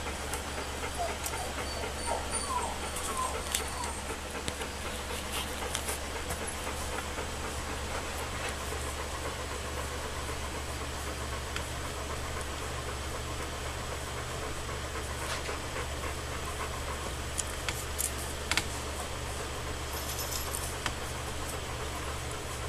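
Alaskan Malamute puppies, about two and a half weeks old, nursing, with a few faint squeaks and whimpers in the first few seconds. Under them runs a steady low hum, with scattered small clicks.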